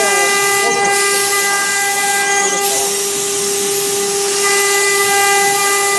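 CNC router spindle running at a steady high whine over a constant hiss, with no change in speed.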